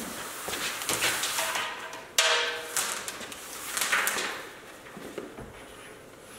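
Black 10 mm air hose being fed through metal EMT conduit: rubbing and scraping with several sharp knocks. The loudest scrape comes about two seconds in, with a brief squeak.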